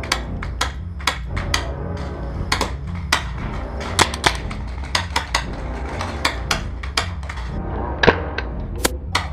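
Paintball markers firing: a string of sharp, irregular pops, several a second at times, over a steady low rumble.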